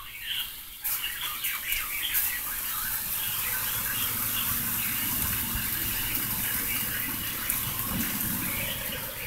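Heavy squall-line rain and wind making a steady rushing noise that jumps up suddenly about a second in.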